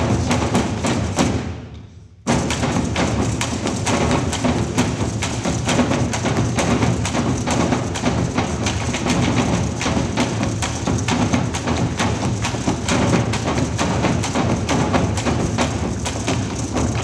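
Percussion ensemble drumming on wooden wine barrels and casks, a dense, fast stream of hollow wooden thuds. A little over a second in, the playing dies away, and just past two seconds it crashes back in all together.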